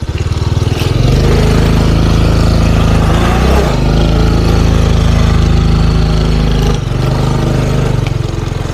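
Small moped engine run hard under throttle as it is ridden across a muddy stretch, with a brief dip about three and a half seconds in. It eases off about seven seconds in and keeps running more quietly.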